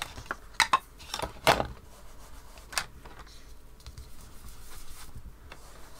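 Hard plastic clicks and clatter as a Distress Ink pad is opened and its case and lid are set down on the craft mat, the loudest about one and a half seconds in. After that, a faint soft scrubbing as a blending brush works the ink onto card.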